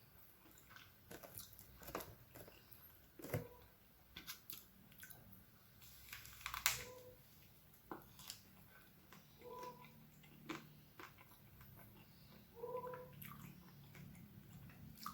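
Faint crunching and chewing of a wafer-shelled ice cream with a crispy chocolate layer: crisp bites and chews at irregular intervals.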